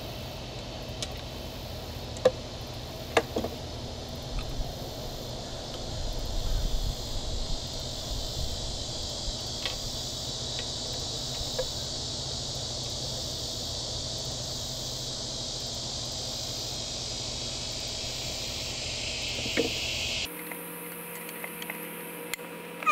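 A few light metallic clicks and clinks of a wrench and a compression-gauge hose fitting being worked at a spark-plug hole on an outboard powerhead. Under them runs a steady high insect drone.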